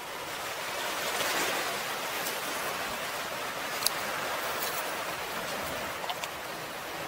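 Sea surf washing in over a rocky shore: a steady rushing hiss of water that swells about a second in, with a sharp click about four seconds in.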